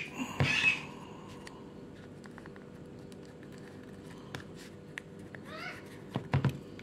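Hands working a folded paper strip in between the developer roller and blade of a Brother colour laser toner cartridge: paper crinkling at the start, small plastic clicks and taps, and a few quick knocks near the end.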